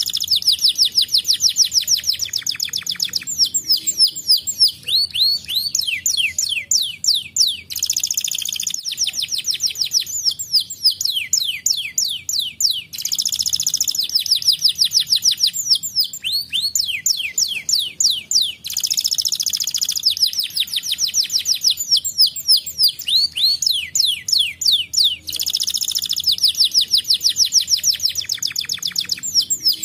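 Domestic canary singing a fast, continuous song: quick runs of high, repeated downward-sweeping notes, broken every five or six seconds by a dense buzzing roll.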